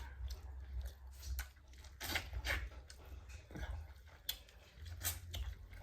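Close-miked eating sounds: a person chewing, with scattered wet clicks and crunches, over a low steady hum.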